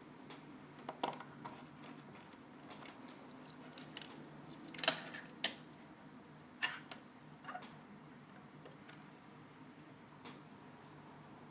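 Small metal repair tools and iPhone 4S parts clicking and tapping as the phone is reassembled: a string of irregular sharp clicks, the loudest about five seconds in, over a faint steady hum.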